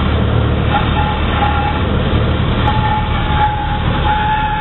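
Cessna 172's piston engine and propeller running at idle during the landing rollout, a steady low drone heard from inside the cabin. A thin, steady high tone sounds in short pieces early on and then holds from about halfway through.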